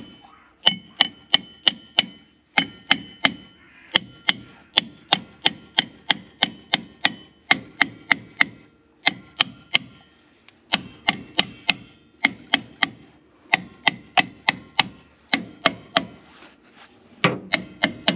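A hammer repeatedly tapping an Austin 7 front brake drum, about three blows a second in runs with short pauses. Each blow leaves a brief metallic ring. The drum is being worked back over freshly relined brake shoes, where it is a tight fit.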